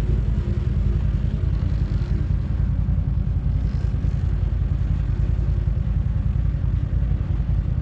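ATV engine running steadily, its sound sitting mostly in the deep range.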